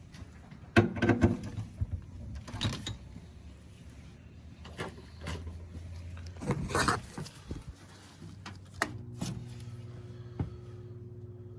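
Several knocks and clatters of furnace parts being handled. Then, about nine seconds in, a steady electric hum with a clear pitch starts suddenly as the Intertherm mobile home furnace is powered back up.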